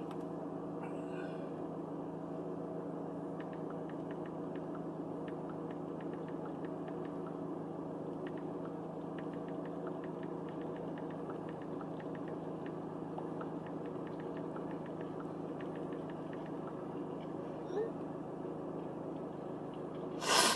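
Car engine idling, a steady even hum heard from inside the cabin, with faint light ticks over it.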